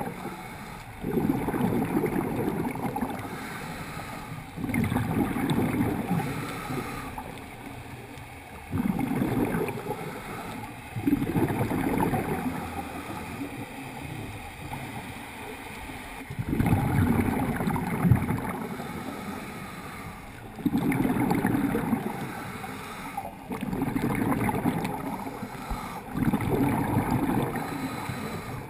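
Scuba regulator exhaust: a diver's exhaled bubbles rumbling and gurgling in bursts of about two seconds, every three to four seconds, heard underwater through the camera housing, quieter in between as the diver breathes in.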